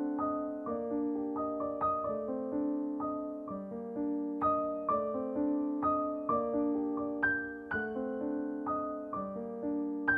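Background piano music: a gentle melody of single notes at about two a second, each note struck and left to ring out and fade.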